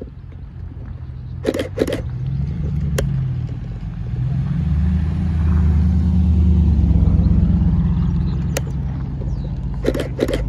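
Lamborghini Urus twin-turbo V8 pulling away past at low speed, its exhaust rumble building as it nears and loudest about six to eight seconds in. A few short clacks sound about two seconds in and near the end.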